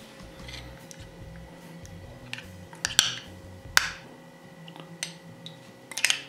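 Several sharp clinks of a metal spoon against a small glass bowl of olive-oil dressing as the bowl is picked up and handled, the loudest about three seconds in and just before four seconds.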